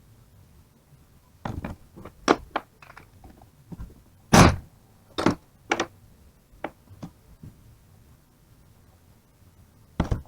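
Irregular knocks and clinks of tools and metal alternator parts being handled and set down on a workbench, a run of them with the loudest about four seconds in, and one more near the end.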